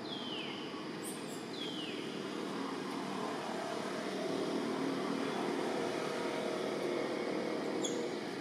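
A motor vehicle's engine running steadily, swelling a little in the middle. Two short high calls, each falling in pitch, come near the start.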